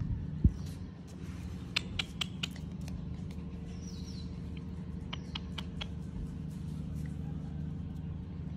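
Puppy's claws clicking and tapping on a glazed tile floor in scattered bursts, with one louder thump about half a second in, over a steady low hum. A short high falling chirp comes about four seconds in.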